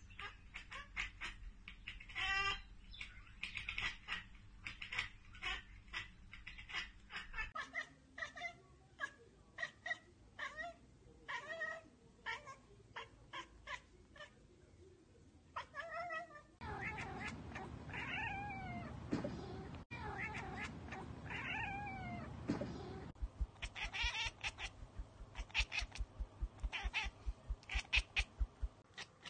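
Several cats, one after another, chattering at prey: quick runs of short clicking chirps, with a few longer chirps that bend down in pitch in the middle. This is the chatter a cat makes at a bird or insect it cannot get to.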